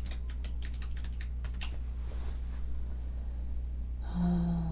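Typing on a computer keyboard: a quick run of keystrokes for the first couple of seconds, then a few scattered ones, over a steady low electrical hum. A short, low hummed voice sound comes near the end.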